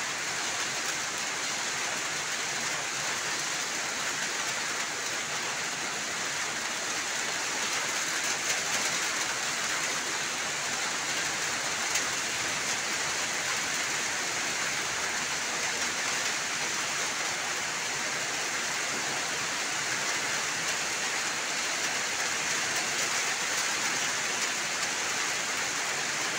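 Steady heavy rain falling on wet pavement and standing water.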